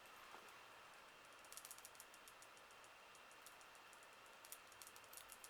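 Near silence: faint room tone with light, quick clicks in short clusters, once about a second and a half in and again near the end.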